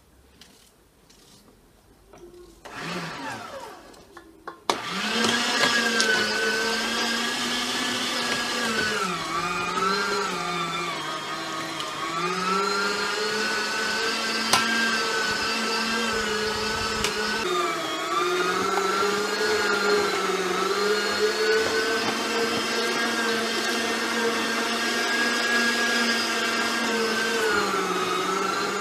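Electric meat grinder motor starting about five seconds in and then running steadily as vegetables are minced through it, its pitch dipping briefly several times under load.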